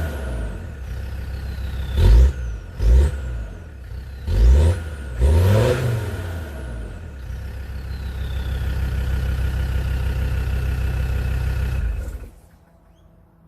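Land Rover Discovery 2 Td5 turbodiesel idling and blipped four times in quick succession, each rev followed by a high turbo whistle falling in pitch as it spools down. It settles back to a steady idle and cuts off suddenly near the end.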